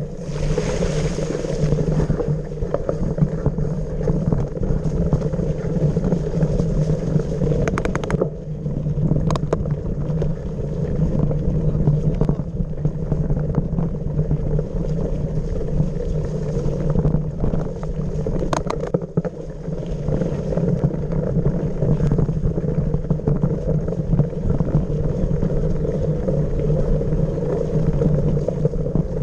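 Small motorbike engine running at a steady pace on a rough dirt trail, with a few sharp knocks and rattles from the bumps.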